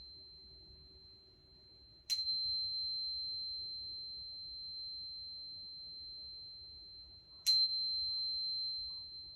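A high, pure-toned chime used in crystal sound healing, struck twice about five seconds apart, each strike ringing on as one steady tone that slowly fades; a faint lower ringing tone dies away in the first two seconds.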